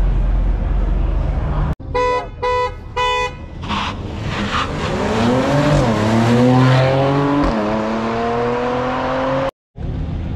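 A low rumble, cut off abruptly, then three short car-horn honks. A car engine then accelerates hard, its pitch climbing and dropping back twice as it shifts up through the gears, before the sound cuts off.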